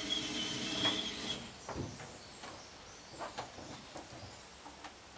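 Electric ATV winch motor running with a steady whine as it lowers a boat off the truck rack, stopping about a second in; then scattered light clicks and knocks.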